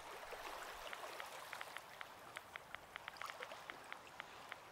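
Quick, uneven taps and clicks of a phone keypad as a number is typed in, about two dozen light ticks. They sound over a steady wash of ocean surf.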